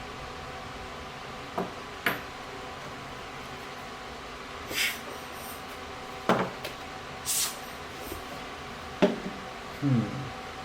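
Small lens parts being handled and fitted on a bench: a few separate light clicks and taps, and two brief scraping sounds.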